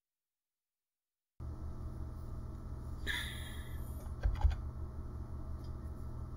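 A few computer keyboard keystrokes about four seconds in, as the Enter key adds new lines, over a steady low hum, with a short hiss just before them. The first second or so is dead silent.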